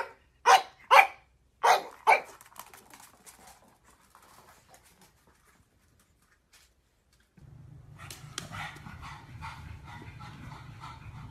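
Pug puppy barking: five short, loud barks in about two seconds, then quiet. Later a steady low hum with background noise comes in.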